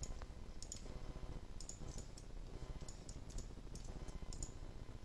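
Computer mouse button clicking: a string of light, short clicks at uneven intervals as edges of a 3D model are picked one by one.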